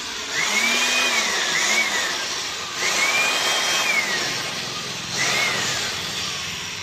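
Electric handheld air blower running, with its motor whine rising and falling three times as the speed goes up and down, over a steady rush of air. This is a test run after the armature was replaced.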